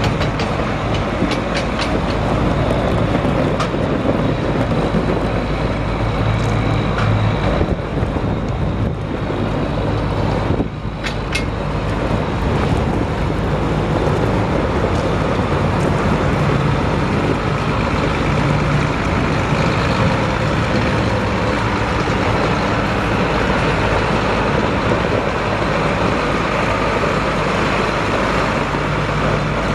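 1994 John Deere 8770 4WD tractor's six-cylinder diesel engine running steadily.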